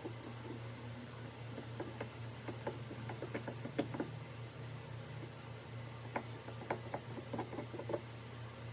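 Light, irregular taps and clicks in two clusters over a steady low hum.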